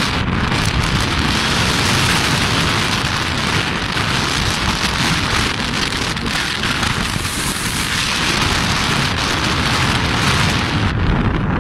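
Wind buffeting the microphone, with a loud steady hiss over it that fades out about a second before the end.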